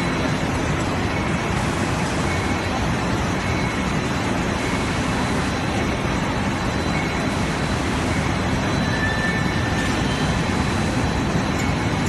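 Single-twist cable stranding machine running at speed: a steady, dense mechanical whirr with a faint high whine held throughout.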